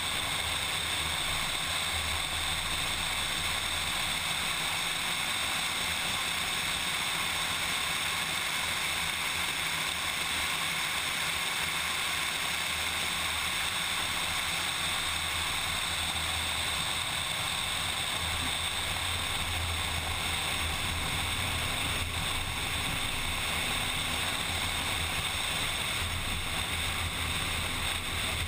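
Car driving at speed: steady wind rush and road noise with a low engine drone underneath, without sharp revs or gear changes.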